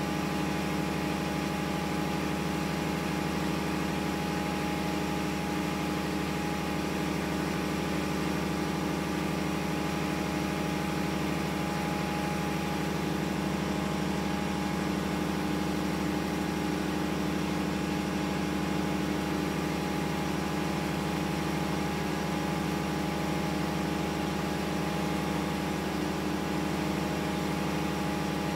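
Steady drone of a ship's engine-room machinery running: an even hum with a few fixed tones and no change in level.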